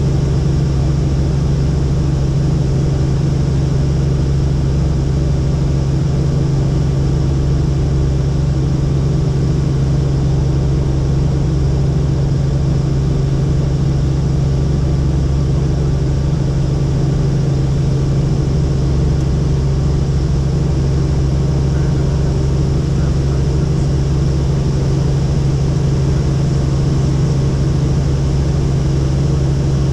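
Helicopter in flight: the rotor and engine make a loud, steady drone that does not change.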